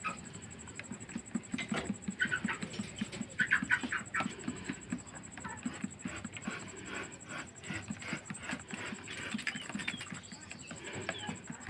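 Stirring a sachet of powdered medicine into water until it dissolves, the stirrer knocking against the container in quick, irregular light clinks, with short high chirps now and then in the background.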